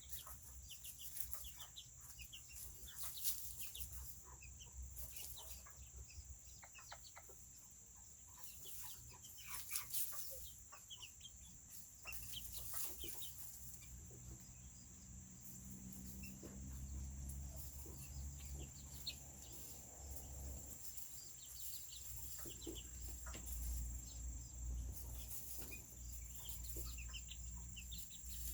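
Serama bantam chickens clucking and chirping softly, among many small scattered ticks, with a steady high-pitched tone behind and a low hum that comes in about halfway through.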